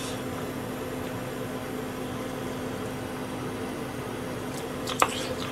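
A steady mechanical hum with a low, even tone, and a single sharp click about five seconds in.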